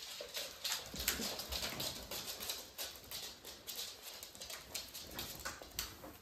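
Pembroke Welsh Corgis' claws clicking on a laminate floor as the dogs walk about: many short, irregular clicks, several a second.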